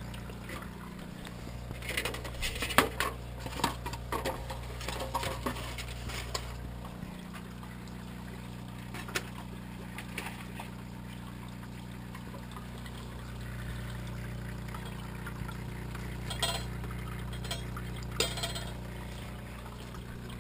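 Steady low hum of an animal tank's water pump with water trickling. Bursts of clicks and rattles come about two seconds in and again near the end.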